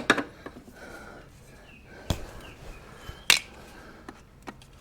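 A portable jump starter being handled: quiet fumbling with two sharp clicks, about two seconds in and a second later.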